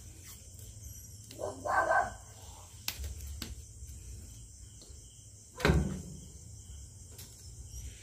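Crickets chirring steadily, broken by two short louder sounds, one about two seconds in and a stronger one near six seconds, with a few light clicks.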